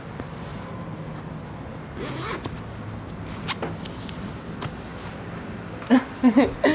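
A dress's back zipper being pulled up, one short zipping stroke about two seconds in, with light handling clicks after it. Near the end a few short voice sounds are louder than the zipper.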